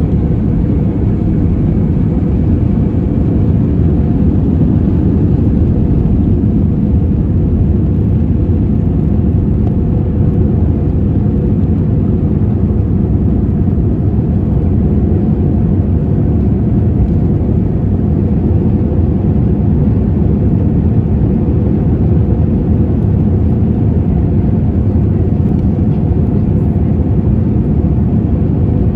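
Cabin noise of an Airbus A320-232 at takeoff thrust, its two IAE V2500 turbofans running as the airliner leaves the runway and climbs out: a loud, steady rush with a low drone and a few faint steady tones.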